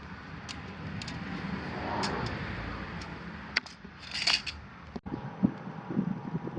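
Handling noise with light, irregular clicks as magnetic screwdriver tips touch and pull on a steel ruler blade.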